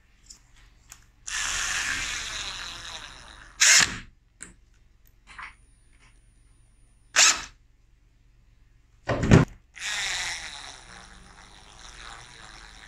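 Cordless drill with a screwdriver bit driving buttplate screws into a wooden rifle stock, running twice for a couple of seconds each. Between the runs come three loud, sharp clicks or knocks.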